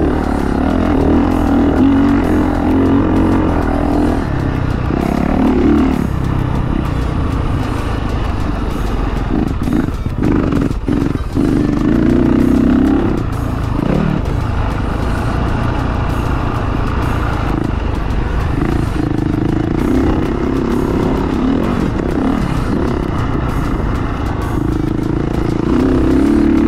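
Motocross dirt bike engine being ridden hard, its note rising and falling as the throttle is opened and rolled off, with the throttle briefly chopped a couple of times around ten seconds in.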